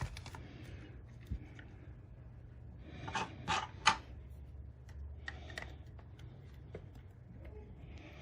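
Plastic hard-drive enclosure case being pried apart by hand: faint scraping with a single click, then a quick cluster of sharp plastic clicks and snaps about three to four seconds in as the snap-fit clips give.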